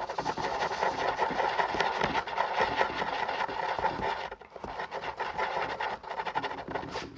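Rapid scratchy scraping and rubbing as two-part epoxy glue is stirred and mixed on a surface, with a short pause about four seconds in.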